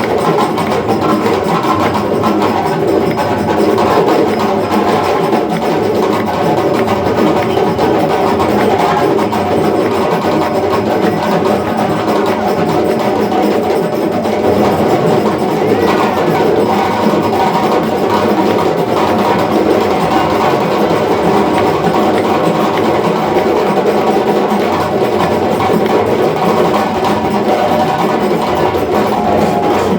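Hand-drum ensemble in the African drumming tradition playing a dense, steady rhythm.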